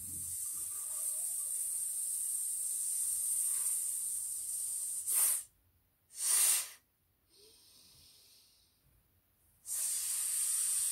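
A woman breathing out through clenched teeth in a long, steady 'sss' hiss like a snake's, then two short, harder hisses that push out the last of the air. A fresh long hiss starts near the end. This is a forced full-exhalation breathing exercise that empties the lungs to engage the breathing-in muscles.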